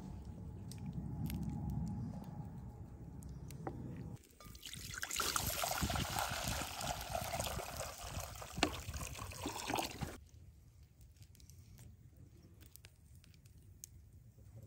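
Water poured in a steady stream into a cast-iron pot already holding water, splashing for about five seconds and then stopping abruptly. A low rumble comes before the pour.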